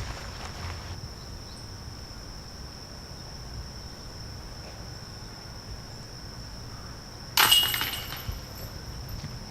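Steady high-pitched insect drone, with one sudden loud metallic clash about seven seconds in that rings briefly before dying away.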